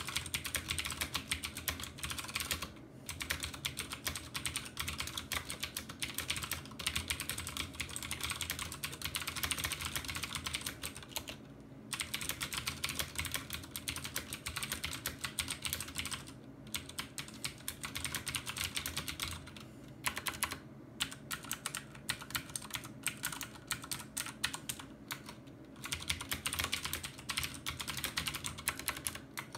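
Fast typing on a Filco Majestouch Convertible 2 mechanical keyboard with clicky Cherry MX Blue switches: a dense run of key clicks broken by a few short pauses.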